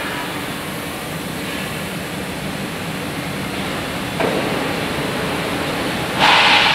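Steady noise of a large factory workshop hall, a continuous even hum and hiss of machinery and ventilation. A short, loud hiss lasting about half a second comes near the end.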